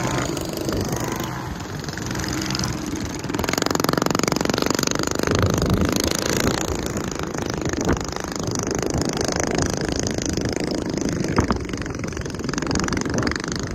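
Mini bike engines running as the bikes race by on a dirt course, the sound swelling and fading as they pass.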